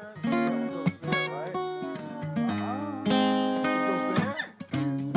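Background acoustic guitar music, with plucked and strummed notes.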